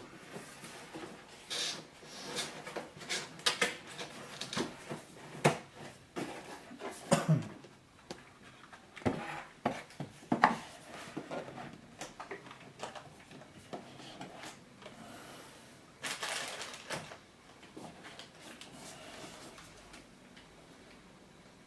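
Handling noise as a mechanical keyboard and its packaging are moved about and set down: irregular knocks, clicks and brief rustles, with a longer rustle about sixteen seconds in.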